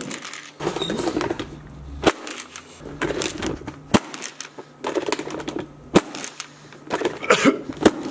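Airzooka air blaster fired several times, about two seconds apart, each shot a short sharp thump, with quiet voices and rustling between the shots.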